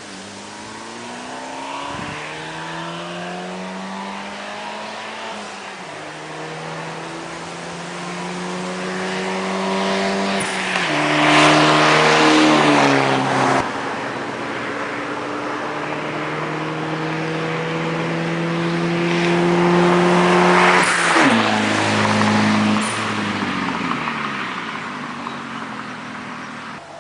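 1999 Saab 9-3's turbocharged engine, open downpipe with no exhaust past the catalytic converter, accelerating past twice: each pass grows loud with a rising engine note, then drops sharply in pitch as the car goes by and fades.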